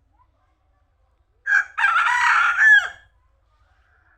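Rooster crowing once: a short first note, then a long held call that drops in pitch at the end.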